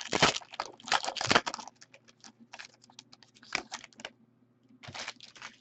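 Trading cards being handled and flipped through by hand. A quick run of dry rustling slides comes in the first second and a half, then scattered soft flicks and clicks.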